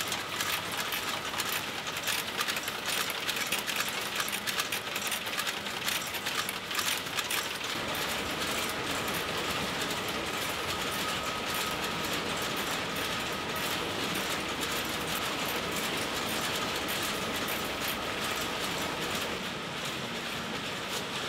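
Computer-controlled tulip stem-cutting and bunching machine running: rapid mechanical clicking and clatter of its grippers and clamp conveyor over a steady machine hum, with a faint steady whine. The clicking is densest in the first half.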